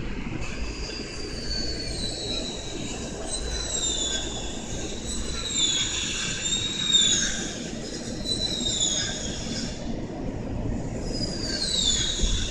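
Steel train wheels squealing on the rails in high tones that slide downward again and again, over a steady low rumble of the train.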